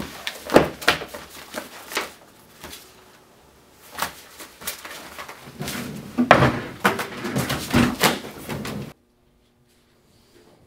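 A magazine and papers handled on a wooden desk: pages rustling, with uneven taps and knocks. The sound cuts off suddenly about nine seconds in.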